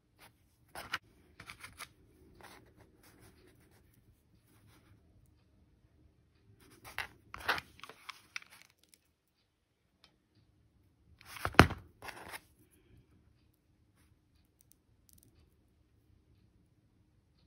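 Small handling noises of coquina shells and a mini hot glue gun on a cardboard work surface: scattered clicks, taps and scrapes in three short clusters. The loudest is a single sharp knock a little past the middle.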